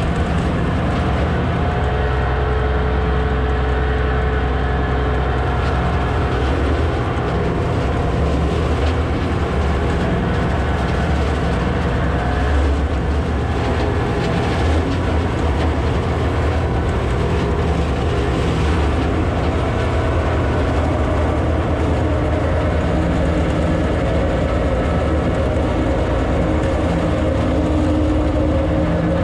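County tractor's diesel engine running steadily under load while the Twose hedge trimmer's flail head spins and chops through hedge growth, a constant dense din with many small snaps and crackles from the cut branches. Heard from inside the tractor cab.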